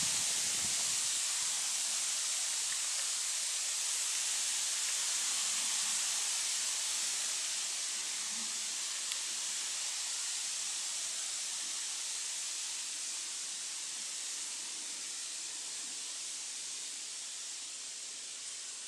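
Steady high-pitched hiss, easing off slightly over the stretch, with only faint rustling beneath it.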